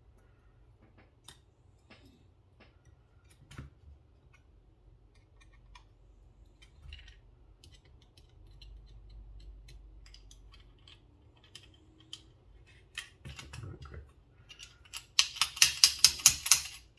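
Small metal parts of a disassembled pocket knife clicking as a stuck part is worked loose by hand. At first the clicks are faint and scattered. Near the end they become a quick run of sharp clicks, about five a second.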